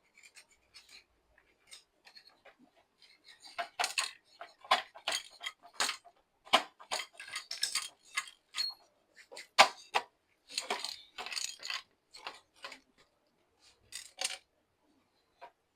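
Metal parts of a coffee grinder being handled during disassembly for cleaning: a run of short clicks, clinks and scrapes, starting a few seconds in and stopping shortly before the end.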